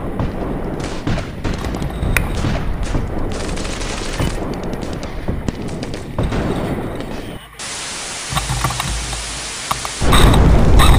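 Airsoft guns firing, many sharp irregular shots and bursts. About seven and a half seconds in the sound cuts abruptly to a steady hiss. About a second before the end a much louder noise with a strong low rumble begins.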